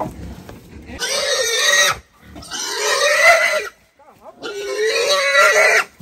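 Young pig squealing while held on a rope: three long, loud squeals with a wavering pitch, the first about a second in, each lasting a second or more with short breaks between.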